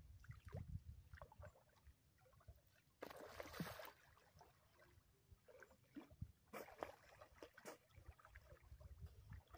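Faint small splashes and gurgles of water, with two brief louder splashy rushes, one about three seconds in and another near seven seconds.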